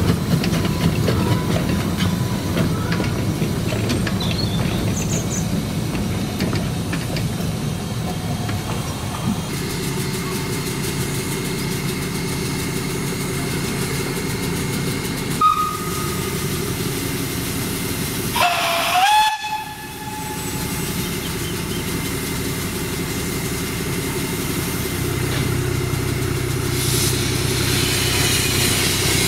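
Narrow-gauge steam locomotive running, with a short whistle toot about halfway through and a louder whistle blast about two-thirds of the way in that slides up in pitch as it opens and lasts about a second.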